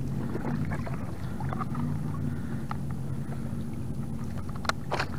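Soft knocks and rustles of a flounder being handled and laid on a plastic kayak's measuring board, with a couple of sharp clicks near the end, over a steady low hum.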